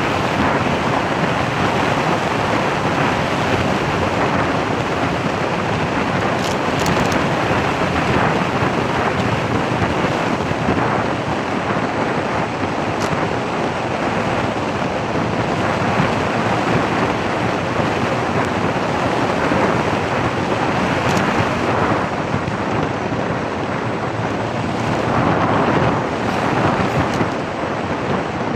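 Steady rushing roar of wind buffeting the microphone, without any clear tone or rhythm.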